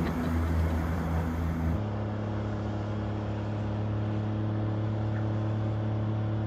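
Motorboat engine running at a steady pitch. About two seconds in the sound cuts to another steady engine hum, a little higher in pitch and duller.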